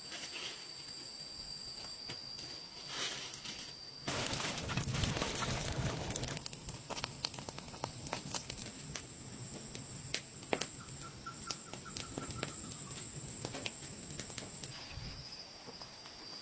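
Forest ambience: insects trilling steadily at a high pitch. About four seconds in comes a two-second burst of rushing noise, then scattered sharp clicks and crackles, with a brief bird whistle near the middle.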